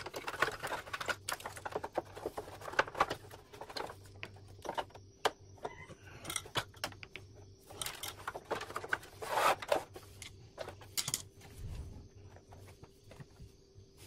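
Irregular clicks, knocks and rattles of plastic and metal parts of a split air-conditioner indoor unit being handled and shifted during disassembly, with louder clusters of knocks about three, six and nine seconds in.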